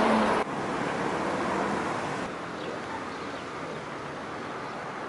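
Steady road and traffic noise, an even rushing hiss, cut off abruptly about half a second in and stepping down again a little after two seconds.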